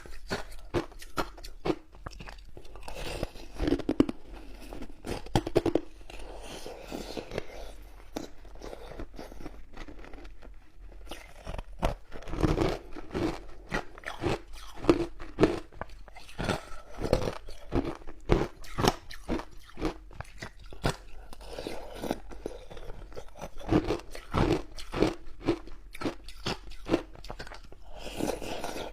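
Ice being bitten and chewed: quick, irregular crunching cracks in clusters, with a couple of short lulls.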